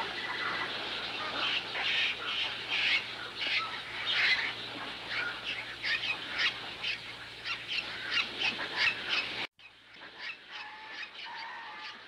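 A flock of flamingos calling, a dense run of short honking calls. The sound cuts off suddenly about three-quarters of the way through, then fainter calls go on.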